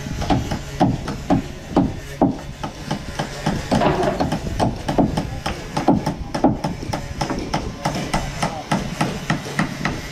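Hammer blows on heavy timber, repeating evenly about twice a second, over a low steady hum.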